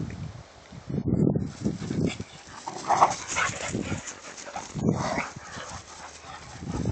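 Two dogs scuffling, with barks and yips in irregular bursts.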